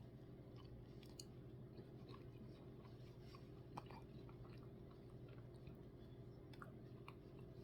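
Near silence: faint mouth and spoon clicks of someone eating soft-serve ice cream, a little louder once near the middle, over a steady low hum.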